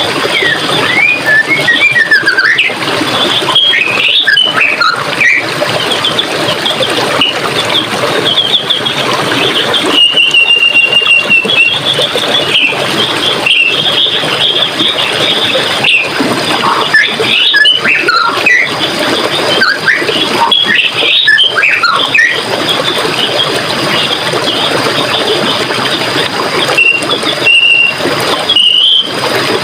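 Running water flowing steadily, with forest birds singing over it: scattered chirps and whistles, a held trilled phrase about a third of the way in, and a busy run of calls past the middle.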